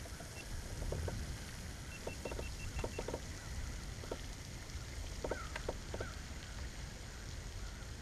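Outdoor wind rumble on the microphone with scattered light knocks and clicks from the kayak and fishing gear. About two seconds in comes a quick run of about six short high beeps, and near the middle a few bird chirps.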